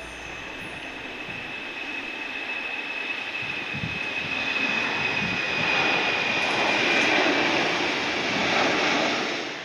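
Boeing 767 freighter's twin jet engines at takeoff thrust: a rushing jet noise with a steady high whine, growing louder as the plane lifts off and climbs past, then fading near the end.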